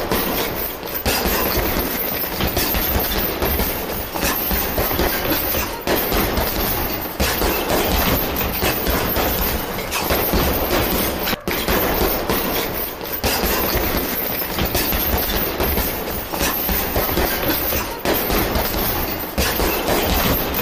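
A rapid, unbroken flurry of gloved punches hitting a TKO heavy bag at full intensity, the impacts running together into a dense rattling clatter.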